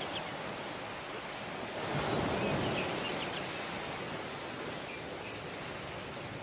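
Surf on a tropical beach: waves washing onto the shore over a steady hiss, with one wave swelling louder about two seconds in. A few faint, short, high chirps sound over the surf.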